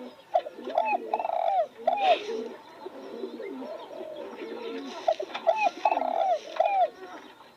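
Spotted dove singing its cooing song, two phrases of about four notes each, one about a second in and one about five seconds in.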